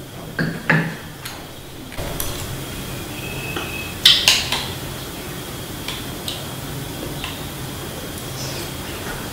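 A small metal spoon clinking and scraping against a drinking glass while scooping from it, with a few light knocks early on and the loudest cluster of clinks about four seconds in.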